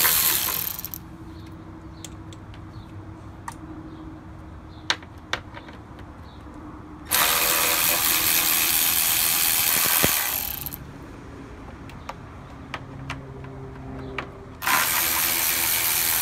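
Milwaukee cordless ratchet running in short bursts as it unscrews the radiator fan shroud bolts. One run ends about a second in, another lasts from about seven to eleven seconds in, and a third starts near the end. Between the runs there are a few light clicks.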